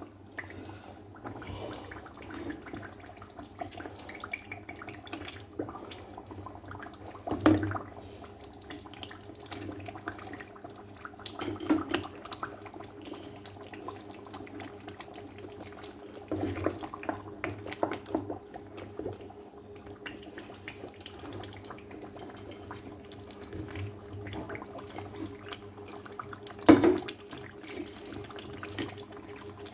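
Cooked meat and fish being put into a pot of stew: wet, liquid sloshing with several sharp knocks of utensils against the pot, the loudest about seven seconds in and near the end, over a steady hum.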